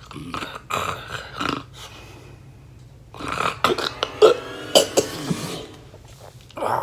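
A person snoring loudly in three bouts. The longest bout starts about three seconds in and lasts some two seconds.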